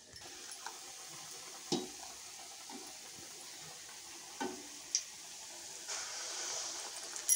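Hot oil sizzling steadily as besan-coated potato vadas deep-fry in a steel kadhai. The sizzle grows louder about six seconds in, as another batter-coated vada is lowered into the oil. A few light clicks come along the way.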